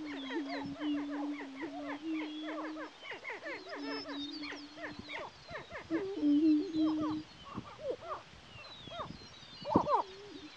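Greater prairie-chickens displaying on their lek. The males' low, steady booming notes are held for a second or two, again and again, under a dense chorus of short rising and falling cackles and whoops. One loud call comes near the end.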